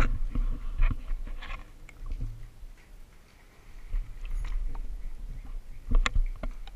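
Handling noise from a camera being carried and set down: knocks and rubbing over a low rumble, quieter for a moment in the middle, with a sharp knock about six seconds in.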